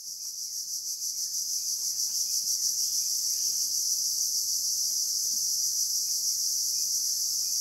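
Tropical rainforest insect chorus: a dense, steady, high shrilling that fades in over the first couple of seconds. Faint short chirps repeat softly beneath it.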